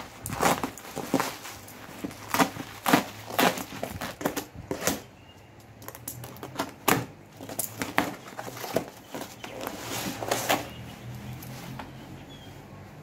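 Bubble wrap and packing tape being cut and pulled apart with a utility knife, then packing tape on a cardboard box being slit open: irregular crackling and rustling with sharp ticks. The crackling thins out after about ten seconds.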